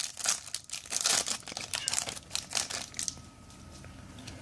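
Trading-card pack wrapper being torn open and crinkled by hand, a dense irregular crackle that dies down to quieter rustling after about three seconds.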